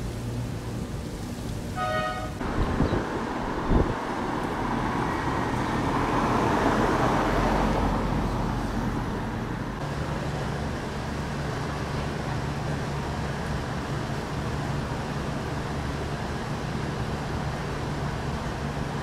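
Street traffic ambience. A short beep about two seconds in and two sharp knocks a second apart are followed by a passing vehicle that swells and fades. After that comes a steadier background with a low hum.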